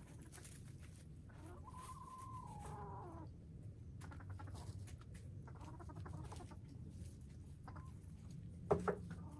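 Hens in a run clucking, with one drawn-out call that falls in pitch at its end and a few fainter calls after it, over a low steady rumble. A sharp double click near the end.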